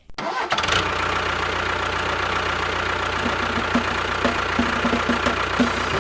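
An engine running steadily at idle, with a rough, even knock.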